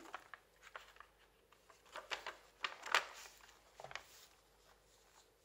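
Paper pages of a handmade journal being turned and handled: scattered soft rustles and crisp crackles, the sharpest about three seconds in.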